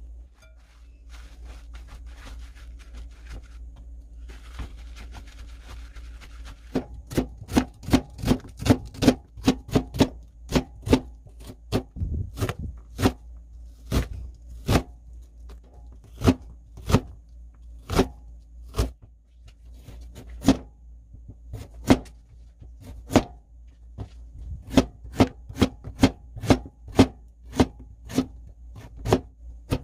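Chef's knife chopping vegetables (onion, then carrot) on a plastic cutting board: sharp knocks in irregular quick runs of about two to three a second, starting about seven seconds in. Before that, only faint rustling.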